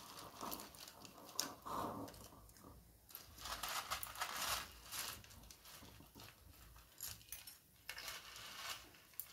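Dry broken instant noodles (Maggi) rustling and clicking as they are handled with a spoon in a bowl and tipped into a small clay pot: a string of short rustles and light clicks, densest about three to five seconds in.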